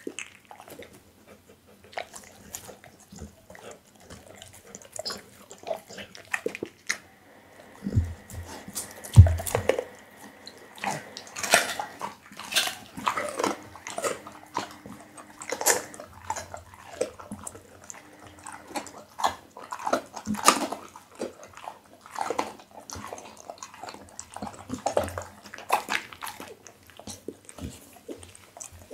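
Pit bull eating raw meat close to a microphone: wet chewing, biting and lip-smacking in quick, irregular clicks and squelches, with two heavy thumps about eight and nine seconds in.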